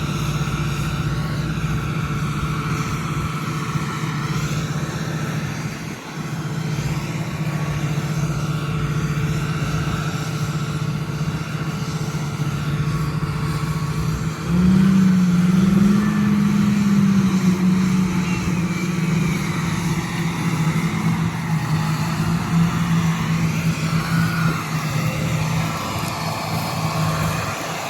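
Large diesel engine of heavy farm machinery running steadily, revving up about halfway through and then easing back to a steady drone.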